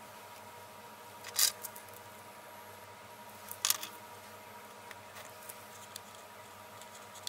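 Paper cutouts rustling briefly as they are handled, twice, with a few faint ticks, over a steady faint hum.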